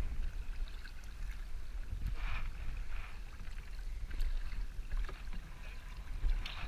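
Canoe paddle strokes: a wooden paddle swishing and splashing through the water about every two seconds, over a steady low rumble.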